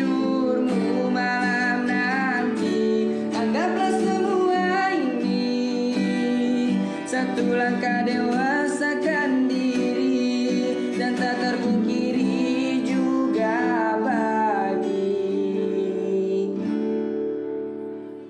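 A young man singing a slow Indonesian pop ballad to an acoustic guitar accompaniment. The music fades out near the end.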